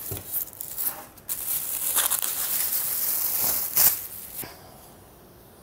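Clear plastic bag and polystyrene foam packaging being pulled off a monitor: crinkling, rustling plastic, with a low knock right at the start. The rustling stops about four and a half seconds in.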